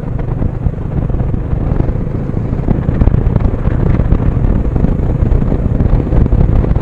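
Wind buffeting the microphone on a moving motorcycle, a loud, gusting rumble with the engine running beneath it.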